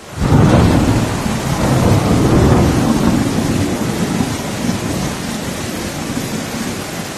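A sudden loud rumble over a steady hiss, like thunder with rain, that slowly fades.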